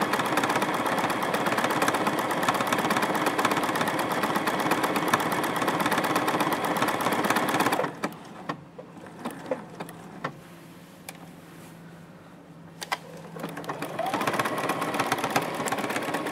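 Juki F600 sewing machine stitching a quilting pattern through layered fabric, running fast with an even, rapid needle rhythm. It stops about eight seconds in, leaving a few clicks, and starts stitching again about six seconds later.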